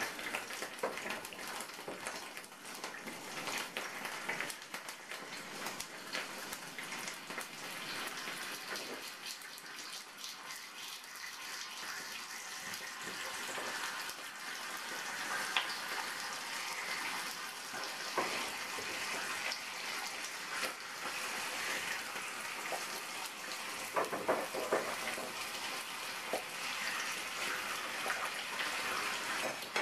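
Bacon strips sizzling in hot oil in a frying pan: a steady crackling hiss that grows slightly louder as more strips are laid in.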